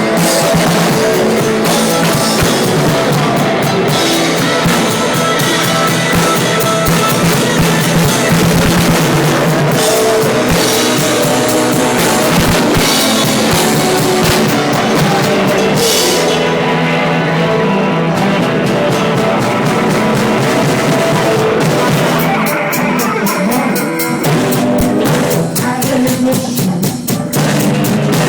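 Live rock band playing a blues song, with drum kit and electric guitar.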